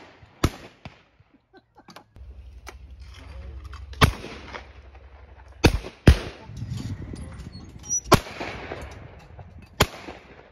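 Shotgun shots fired at clay targets: a series of sharp reports that ring out across the field, two of them in quick succession about six seconds in.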